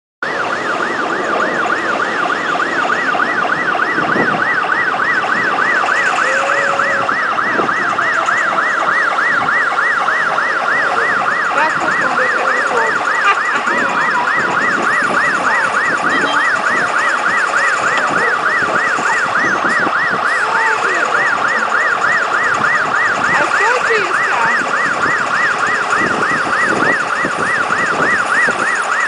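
Fire truck siren in yelp mode: a fast, unbroken up-and-down sweep in pitch repeating about three times a second.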